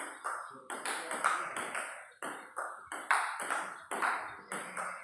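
Table tennis ball clicking against the paddles and the table in a fast rally, about three hits a second, each hit echoing in a hard-walled room.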